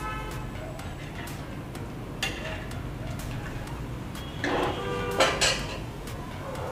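Steel ladle stirring sambar in a metal kadai, clinking and ringing against the pan a few times: once near the start, once about two seconds in, and several times, loudest, around five seconds in.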